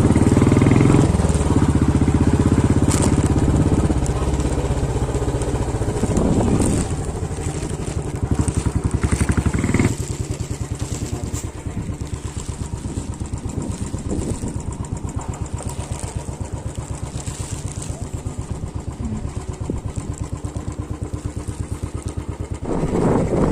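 An engine running, louder for the first ten seconds or so, then settling into a quieter, steady, evenly pulsing note.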